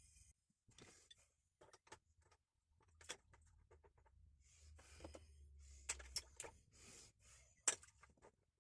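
Faint, scattered clicks and light knocks of small metal parts being handled, the sharpest near the end, over a low steady hum.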